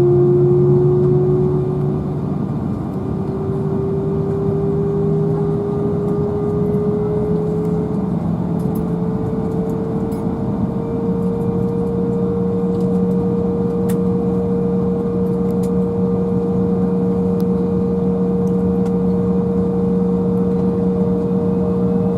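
Embraer 175's CF34 turbofan engines heard inside the cabin, their whine rising in pitch over the first ten seconds or so and then holding steady over a constant rumble.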